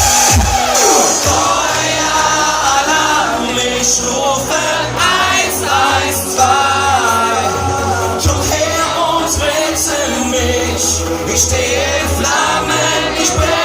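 German Schlager pop song performed live: singing over an electronic backing track. The thumping dance beat drops out about a second in, leaving the voices over sustained bass notes.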